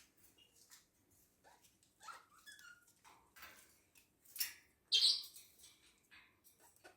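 Pet parrots making short chirps and calls, a few with quick pitch glides, the loudest a sharp high call about five seconds in.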